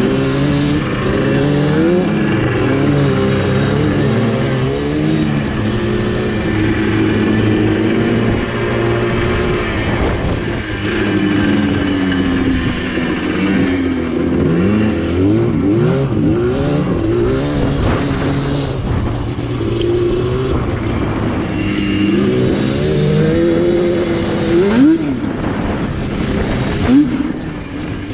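Yamaha Banshee ATV's twin-cylinder two-stroke engine being ridden, its pitch rising and falling as the throttle is worked. Several quick, sharp revs come in the middle and near the end.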